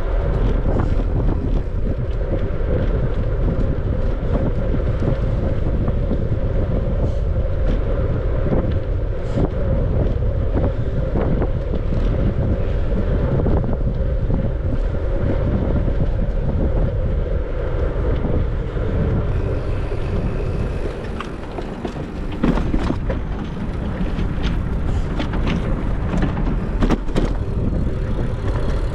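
Wind rushing over the microphone of a moving bicycle, over a steady low rumble. Scattered short clicks and knocks, more of them in the second half.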